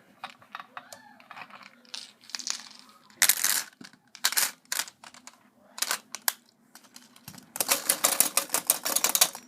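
B-Daman marble shooter (Lightning Bison) being rapid-fired: quick plastic clicks of the trigger and a clatter of marbles, in bursts that run together into a dense rattle near the end.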